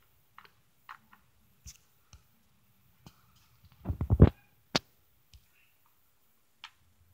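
Sparse light clicks and taps from a small plastic toy figure being handled and set down on a windowsill. About four seconds in there is a short cluster of louder, low thumps, followed by one sharp click.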